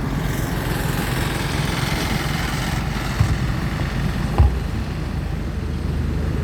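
A steady low engine hum, with two short thumps, one about three seconds in and one about four and a half seconds in.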